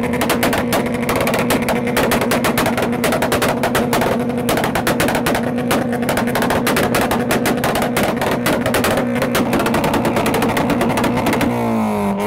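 Honda Civic hatchback engine held at high revs on the rev limiter: a rapid stuttering crackle at a steady pitch, with the revs falling away right at the end.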